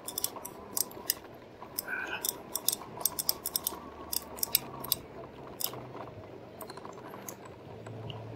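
Irregular light clicks and rattles from a 2018 RadMini fat-tire electric bike riding over beach sand, with a faint steady hum underneath.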